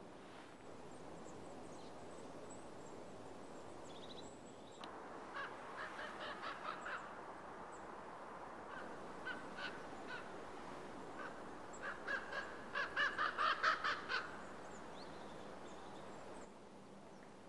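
A bird calling in two runs of short, harsh notes at about four a second, with a few single notes between them, over a steady background hiss.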